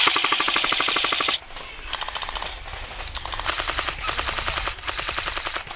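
Airsoft rifles firing on full auto as a rapid mechanical chatter. A loud burst lasts about a second and a half, then several quieter rapid bursts follow.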